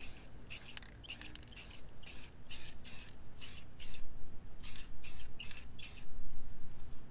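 Aerosol spray can of black paint hissing in a dozen or so short bursts, about two a second, as it is sprayed onto a chrome car wheel; there is a short pause a little after four seconds and the spraying stops about six seconds in.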